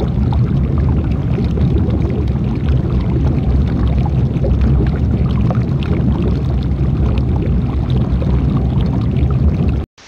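Dudhsagar Falls' water crashing into its plunge pool close up: a loud, deep, steady rumble that cuts off suddenly near the end.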